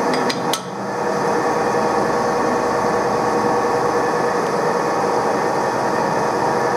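Steady mechanical whirr of running machinery in a metal shop. A few sharp metallic clicks come in the first second as a four-jaw lathe chuck is handled and turned by hand.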